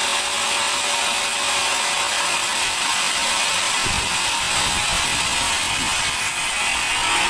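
Sawmill band saw cutting lengthwise through a large teak log, a steady high hissing whine of the blade in the wood.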